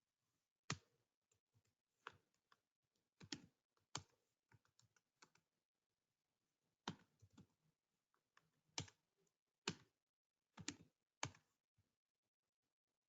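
Faint computer keyboard typing: irregular keystrokes in short runs with pauses between them.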